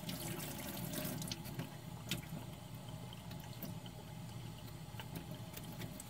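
Tap water running into a stainless steel kitchen sink, with a few light clicks as a knife scrapes pig's feet under the stream.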